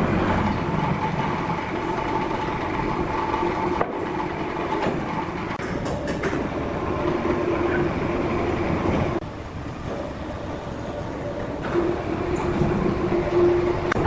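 Sawmill machinery running steadily with a mechanical hum. The sound breaks off and changes abruptly about four seconds in and again about nine seconds in.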